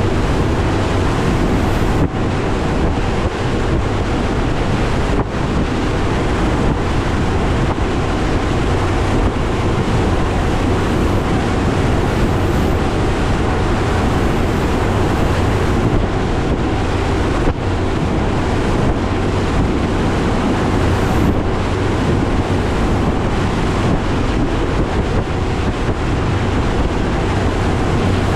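Mercury Pro XS 200 outboard running steadily under way on a Nitro Z19 bass boat, with the hull going through rough water and heavy wind buffeting the microphone.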